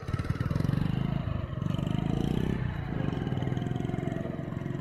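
Single motorcycle engine running under load on a steep off-road climb, its revs falling and picking up again a couple of times.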